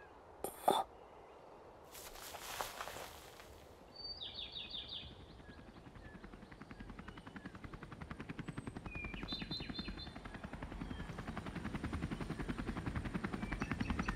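Helicopter rotor beating rapidly and growing steadily louder as it approaches, from about six seconds in, over faint chirping. Near the start there are a couple of sharp clicks, then a brief rush of noise about two seconds in.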